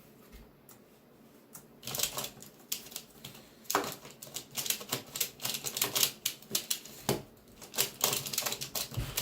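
QiYi Six Spot Cube, a plastic 3x3 speedcube, being turned fast in a speedsolve: a quick, irregular run of plastic clicks and clacks that starts about two seconds in.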